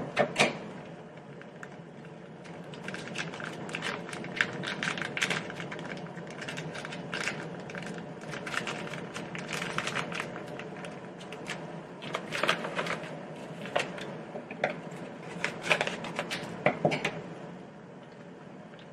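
Plastic food sachets crinkling and crackling irregularly in the hands as they are squeezed and opened over a pot, the pickled bamboo shoot sachet being emptied into the soup.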